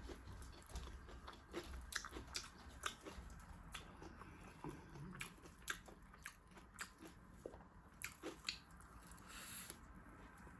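Faint close-up eating sounds: chewing and biting, with soft wet mouth clicks and small crunches at irregular intervals.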